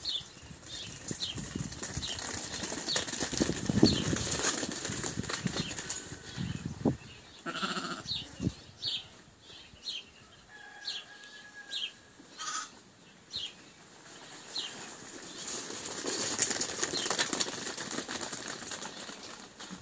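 Navajo-Churro lambs running on a concrete patio: two stretches of rapid hoof patter and rustling. Through it a small bird gives short high chirps over and over, about once a second.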